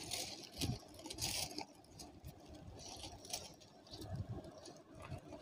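Honeycomb kraft-paper packing wrap rustling and crinkling in irregular bursts as hands unwrap a product from a cardboard box, busiest in the first second and a half.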